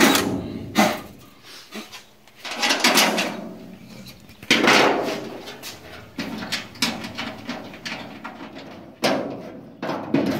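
Metal bracket hardware and the sheet-steel inner fender apron clunking, scraping and rattling under hand work, in several separate bursts with scattered clicks and a sharp knock near the end.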